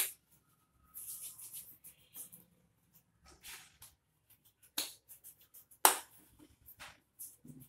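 Hands rolling soft wheat-flour dough into balls between the palms: quiet rubbing and patting, with a few sharp pats, the loudest about five and six seconds in.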